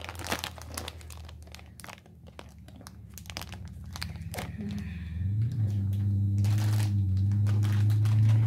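A plastic candy bag of Swedish Fish Mini crinkling as it is handled. From about five seconds in, a steady low hum comes in and grows louder.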